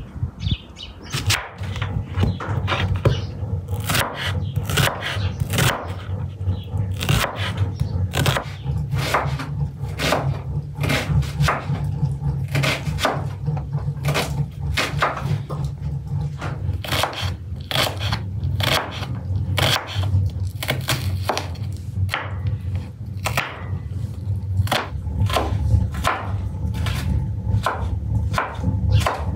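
Knife chopping on a cutting board: repeated sharp strokes, irregular, about one or two a second, starting about a second in.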